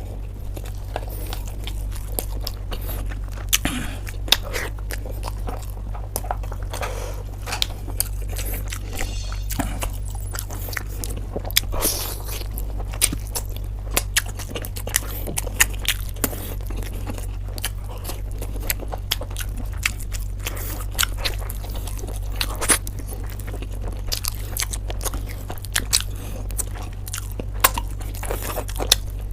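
A person chewing and biting into food, with irregular crunchy clicks and smacks throughout. A steady low hum runs underneath.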